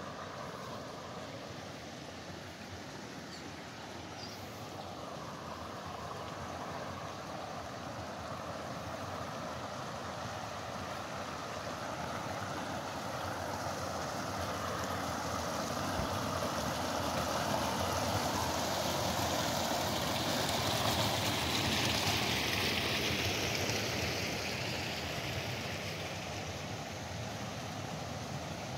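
Water rushing along a narrow concrete irrigation channel, with a small step where it spills down; the rushing grows louder past the middle and eases near the end.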